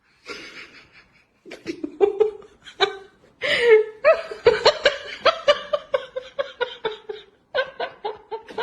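A person laughing: breathy chuckles at first, then from about four seconds in a long, high-pitched run of rhythmic "ha" bursts, about three a second.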